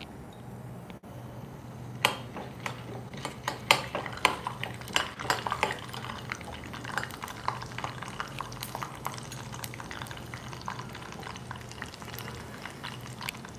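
Chana dal and urad dal frying in oil for a tempering in a small steel saucepan, stirred with a steel spoon: crackling and clicks of the spoon against the pan, starting about two seconds in, densest over the next few seconds and then sparser. A steady low hum runs underneath.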